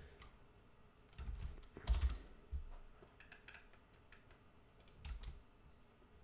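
Computer keyboard being typed on in a few short runs of keystrokes, with quiet pauses between them.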